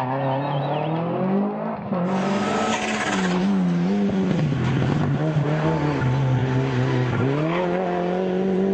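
Rally car engine running hard, revs rising and falling repeatedly as it shifts gears and brakes for corners. The sound changes abruptly about two seconds in.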